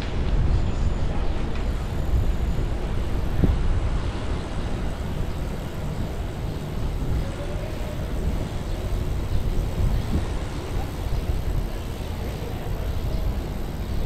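Wind rushing over a bike-mounted camera's microphone while cycling, a steady low rumble mixed with tyre noise on the road.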